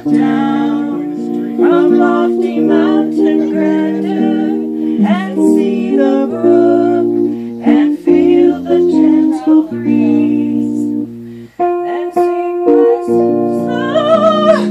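A woman singing a hymn into a microphone, accompanied by held chords on a Yamaha digital keyboard.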